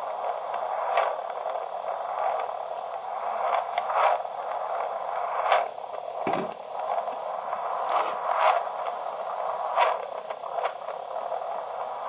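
Steady static-like hiss with irregular swells and crackles about once a second.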